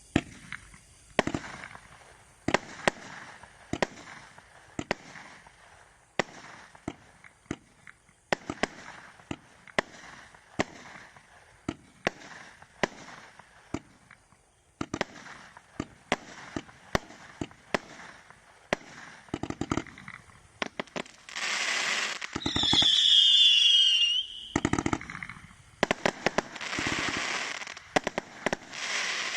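Vigilante firework being fired: a run of sharp shots about one every second or so, each followed by crackle. Near the end come louder, denser volleys with a falling whistle over heavy crackling.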